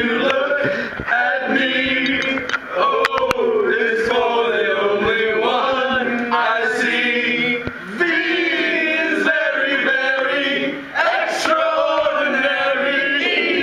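A group of men singing a song together in chorus, breaking off briefly between lines.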